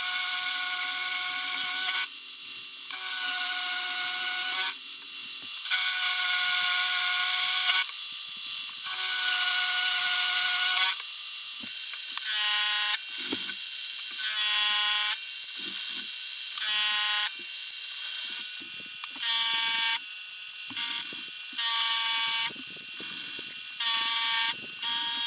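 Milling machine spindle whining as an end mill takes light cuts to mill a slot in a 4140 steel bar. The whine breaks off and changes pitch every second or two.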